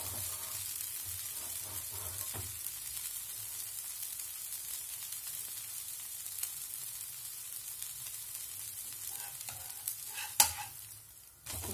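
Wheat-flour dosa sizzling steadily on a hot dosa tawa as it browns and turns crisp. About ten seconds in there is one sharp scrape-click as a steel spatula goes under its edge, and the sizzle then drops away.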